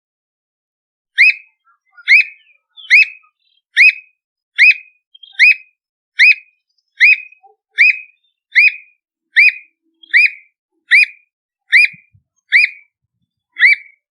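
Squirrel cuckoo (Piaya cayana) singing: a long, evenly paced series of about sixteen short, sharp whistled notes, roughly one a second, beginning about a second in.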